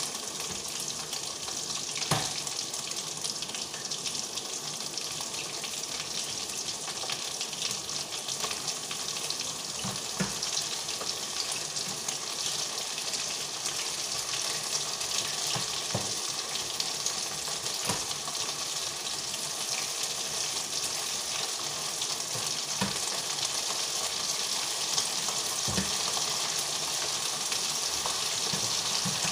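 Chicken pieces frying in hot oil in a pan, a steady sizzle that grows slightly louder toward the end. A few sharp clicks of the utensil against the pan as the pieces are turned.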